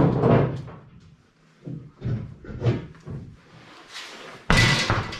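Knocks and clunks as a spare wheel is worked off a Jeep TJ's rear tire carrier, ending in a sudden loud bang about four and a half seconds in.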